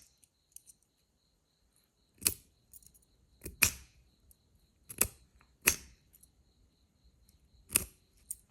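Sharp metallic clicks from a solid-brass lighter being handled and taken apart, six in all, including one quick double click.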